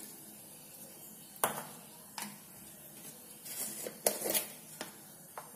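A few light clinks and taps of a spoon on crockery as ground pepper is sprinkled over crispy fried brinjal slices: one about a second and a half in, another soon after, a short cluster around four seconds, and a last tap near the end.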